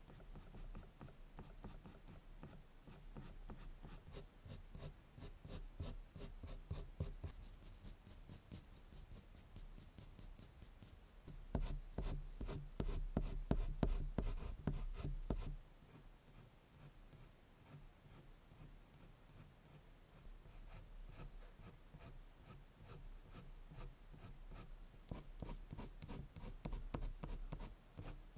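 Prismacolor colored pencil scratching across drawing paper in rapid, short hatching strokes. It is louder for a few seconds around the middle.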